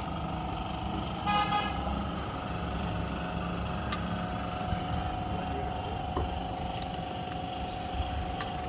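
A car engine idling steadily with a faint steady whine over it. About a second in, a car horn gives one short toot.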